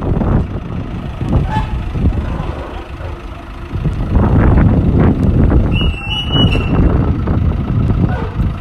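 A heavy vehicle engine running, with knocks and clatter and a short high squeal about six seconds in.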